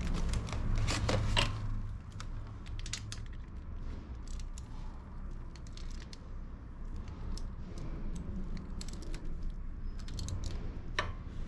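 Scattered light metallic clicks and clinks of hand tools and small engine parts being handled during a Harley Twin Cam cam-chest teardown.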